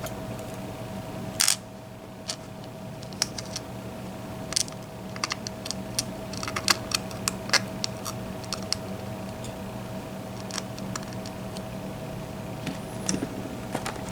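Scattered light clicks and taps of small metal lock parts being handled, from a disassembled Mul-T-Lock MT5+ high-security lock, with one sharper click about a second and a half in. A steady hum runs underneath.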